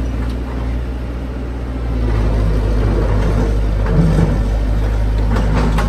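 Caterpillar crawler excavator's diesel engine running steadily under load as the machine climbs a steep muddy slope on its tracks, getting louder about two seconds in.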